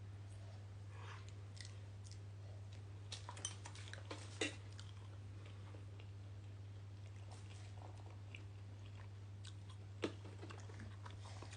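Faint chewing of a child eating noodles: small mouth clicks in clusters, loudest a little after four seconds and at about ten seconds in, over a steady low hum.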